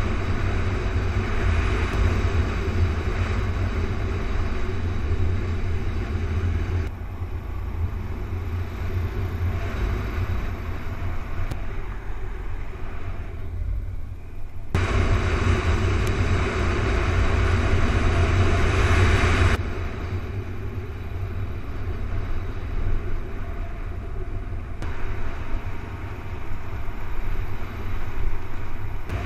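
Single-cylinder dual-sport motorcycle riding a dirt road, heard from a camera mounted on the bike: steady engine and road noise under a deep wind rumble on the microphone. It jumps abruptly between louder and quieter stretches four times where the ride footage is cut.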